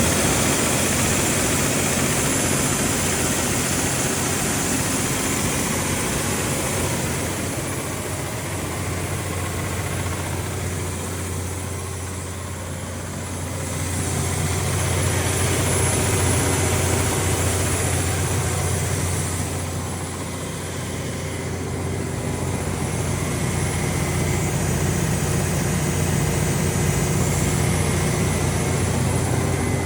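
Cummins QSX15-G9 15-litre inline-six diesel engine of a 500 kW standby generator set running steadily at its constant governed speed, a deep even hum with a hissing upper layer. The level dips and comes back twice, about twelve and twenty-one seconds in.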